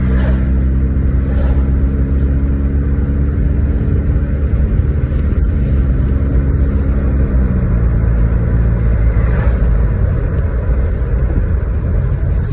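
Car engine and road rumble heard from inside the cabin while driving, a steady low hum whose pitch eases down slightly partway through.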